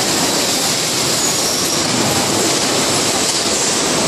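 Steady machine noise of an automatic carton case packer and its conveyors running on a packing line: an even hiss with no clear rhythm.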